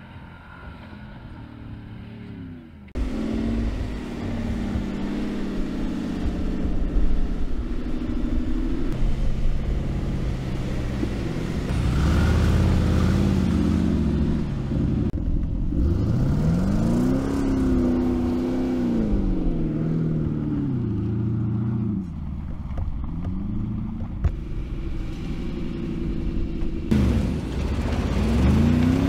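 Mercedes-Benz G-Class engine revving hard under off-road acceleration, its pitch climbing and falling again several times. It gets suddenly louder about three seconds in.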